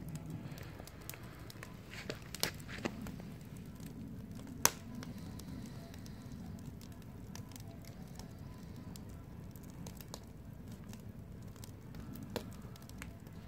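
Wood fire burning in a steel fire barrel: a steady low rush of flames with scattered crackles and pops, the loudest pop about four and a half seconds in.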